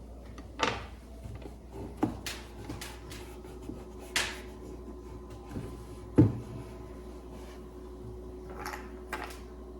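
Homemade puzzle box being handled and worked: scattered clicks and knocks of its parts being moved, the loudest about six seconds in.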